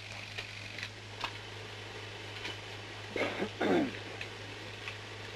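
Steady hiss and low hum of a 1945 newsreel soundtrack with scattered faint clicks, and a brief sound from a person's voice about three seconds in.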